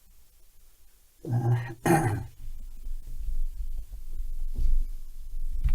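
A man's short grunt about a second in, then low rumbling handling noise with two heavier thuds near the end.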